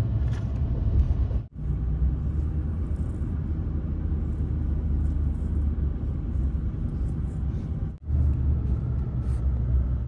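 Steady low rumble of a car driving, road and engine noise heard from inside the cabin, with two short gaps about one and a half seconds in and near eight seconds.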